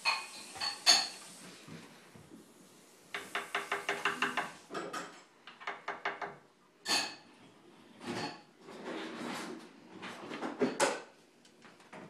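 Scarlet macaw's claws tapping and scraping on a wooden tabletop and chair as it walks and hops about, with a sharp tap about a second in and a quick run of about ten clicks a few seconds later.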